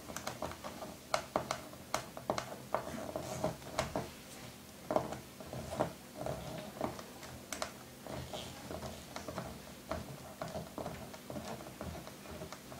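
A small screwdriver turning a keyboard screw into the plastic underside of an IBM ThinkPad laptop: quick, irregular clicks and ticks of the bit and screw against the case.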